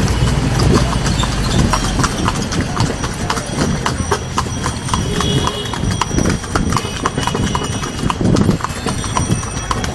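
Hooves of a pair of horses pulling a tomtom horse cart clip-clopping on a paved road, an even run of several hoofbeats a second.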